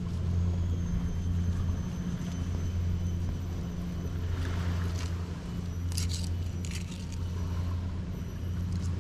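A steady low engine rumble, like a motor boat, throughout, with a couple of short scrapes about six and seven seconds in as a knife cuts along a needlefish fillet.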